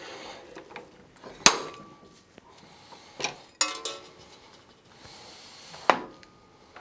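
Metal clanks and clicks from the tool carriage and die head of a Wheeler-Rex 6590 pipe threading machine being handled: about four sharp knocks a second or two apart, some ringing briefly.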